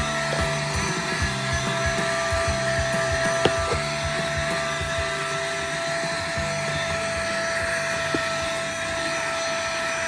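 ABSOB AB-114 cordless handheld vacuum cleaner running steadily, a constant high motor whine over rushing air as its crevice nozzle sucks at a car floor mat.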